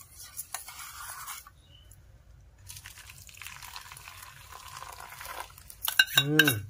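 A metal spoon stirs and scrapes in a steel bowl of milky liquid, then the liquid is poured in a steady stream onto crushed biscuit crumbs in a steel bowl for about three seconds. Near the end come a few sharp clinks of steel and a brief voice.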